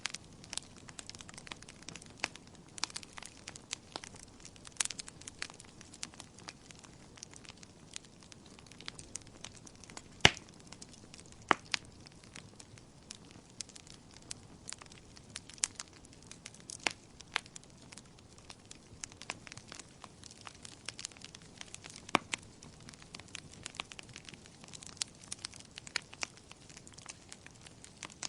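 Wood fire crackling in a fireplace: irregular sharp pops and snaps over a faint steady hiss, with one louder pop about ten seconds in.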